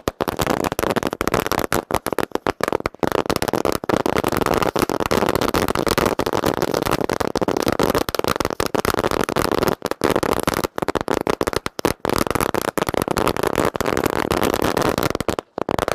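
A long firecracker string (ladi) of thousands of small crackers bursting in a rapid, continuous crackle of bangs, with a few momentary breaks.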